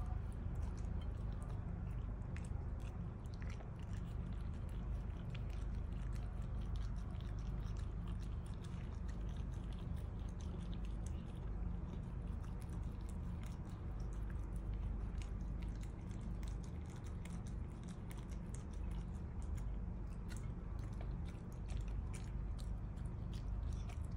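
A dog chewing and mouthing cooked rice from a plate: irregular small wet clicks and smacks throughout, over a steady low background hum.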